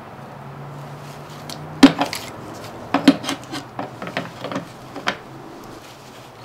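Metal tool clinking and knocking against a car battery's terminal clamp as it is loosened and worked off: one sharp knock about two seconds in, then a run of lighter, irregular clinks for about three seconds.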